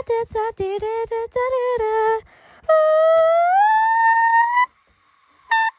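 A single unaccompanied voice singing a run of short, clipped notes, then one long note that slides up in pitch and holds, and one more short note near the end.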